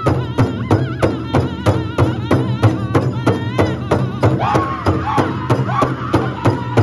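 Powwow drum group: many drumsticks striking one large shared drum together in a fast, even beat, with men singing high, wavering lines over it, a song for the men's chicken dance.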